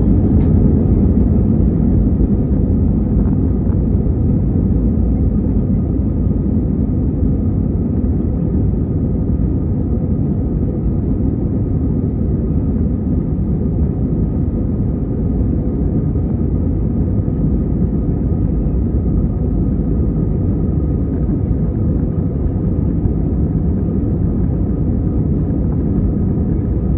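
Commercial jet airliner's engines at takeoff, a loud steady rumble with a few faint steady tones above it, easing a little over the first several seconds.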